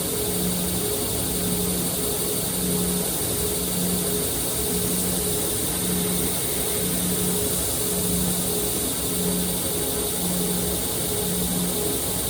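Motorized sharpening grinder running steadily, with a high hiss and a low hum that swells about once a second, while a Shun chef's knife blade is ground and thinned.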